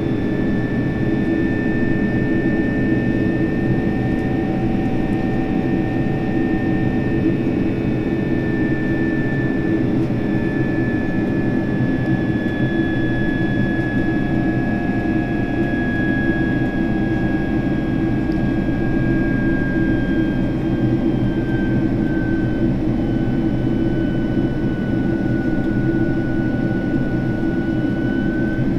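Cabin noise of a Boeing 767-300ER in flight: the steady sound of the jet engines and rushing air heard from a window seat beside the wing, with a high engine whine that slowly falls in pitch.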